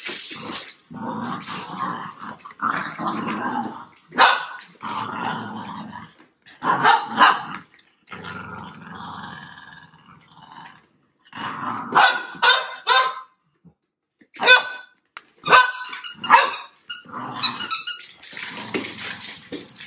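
Cavalier King Charles spaniels growling and barking in play during a game of tug with a toy: stretches of rumbling growls early on, broken by short sharp barks several times.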